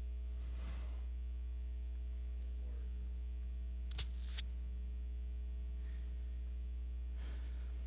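Steady low electrical mains hum, with two sharp clicks about four seconds in, half a second apart.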